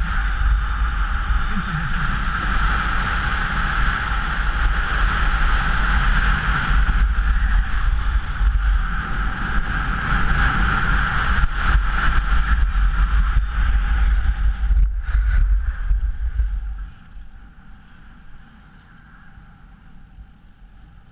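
Heavy wind rumble on the microphone over a steady rushing hiss, the sound of moving fast over snow. About seventeen seconds in it drops off sharply to a much quieter hiss.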